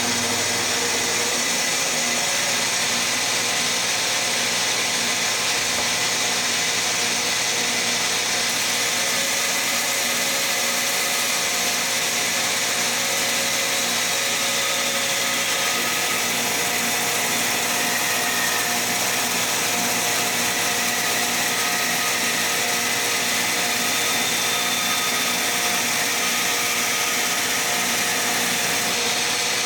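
Shopsmith bandsaw running steadily at a constant level while a board is fed through it for a freehand cut.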